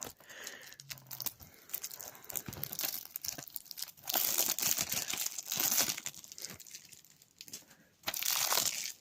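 Plastic wrapping on a DVD case crinkling and tearing as it is pulled off, in irregular crackles that are loudest in two stretches, about four to six seconds in and just after eight seconds.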